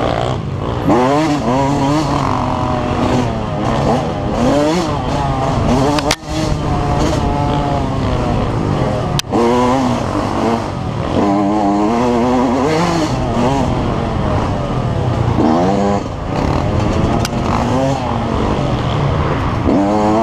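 Yamaha YZ125 two-stroke single-cylinder engine revving up and down under race load, its pitch rising and dropping every second or two as the throttle is worked, with a few sharp knocks.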